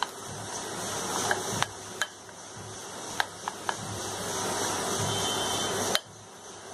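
Metal spoon stirring a thick besan-and-curd spice paste in a glass bowl: a scraping swish that swells and fades, with several sharp clinks as the spoon strikes the glass. The stirring stops abruptly about six seconds in.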